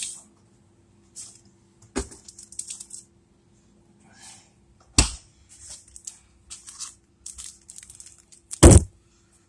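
Close handling noises: scattered rustling and a few sharp knocks, the loudest near the end, over a faint steady hum.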